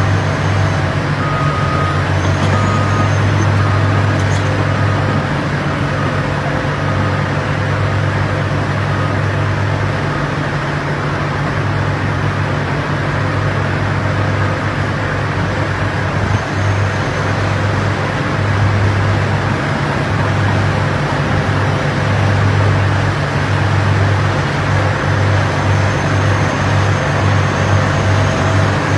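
A bulldozer's heavy diesel engine running steadily with a deep, unevenly pulsing drone. For the first several seconds a faint reversing alarm beeps about once a second.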